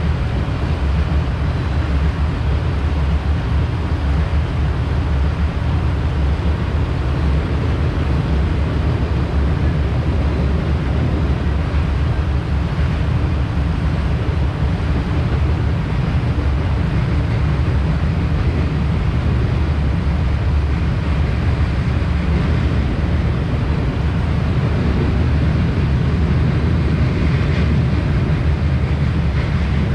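Cars of a long Canadian Pacific freight train rolling past: steel wheels on rail, making a steady, mostly low sound.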